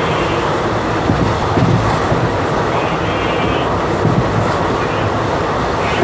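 Express train passenger coach running at speed: a steady rumble and rattle of wheels on rails with a few small knocks, heard from inside the coach at an open barred window.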